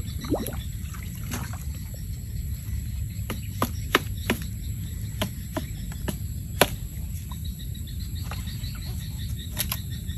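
Scattered sharp clicks and knocks of bamboo as a bamboo eel trap is handled, its funnel pulled out and the tube tipped to empty it, with two louder knocks about four and six and a half seconds in.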